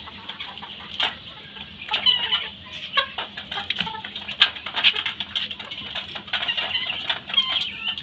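Flock of chickens clucking and calling, with many short, sharp calls close together and overlapping.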